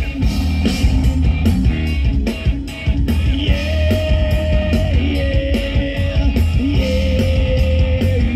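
Live rock band playing loudly with electric guitar, bass guitar and drums. A singer comes in with long held notes about three and a half seconds in.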